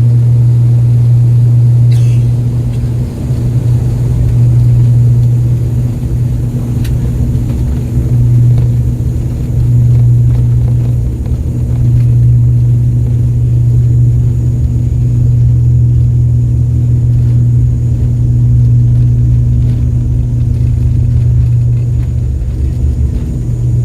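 Airliner engines at takeoff power, heard from inside the cabin: a loud, steady low drone with a fainter steady hum above it, wavering slightly in loudness.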